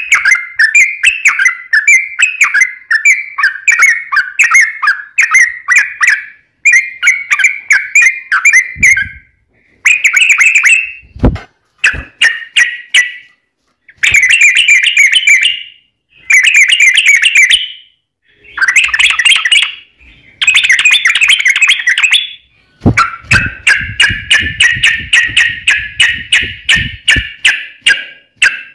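Yellow-vented bulbul (trucukan) singing its rapid chattering song: quick runs of bubbly notes in bursts of one to two seconds with short pauses between. Near the end comes one long unbroken run of about five seconds.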